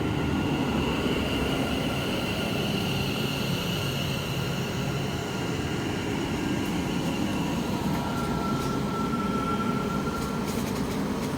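West Midlands Railway Class 730 electric multiple unit standing at the platform, its onboard equipment giving a steady hum with a high whine. A second, lower whine joins about eight seconds in and stops a couple of seconds later.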